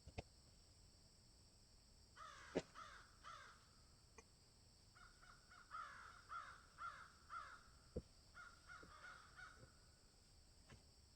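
Faint, harsh bird calls repeated about twice a second in two long series, with a few soft clicks between them.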